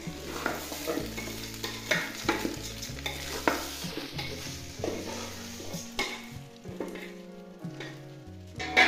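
A wooden spoon stirring and scraping damp rice in an aluminium pot on a charcoal stove, in short strokes about twice a second over a steady hiss. There is a louder knock against the pot near the end.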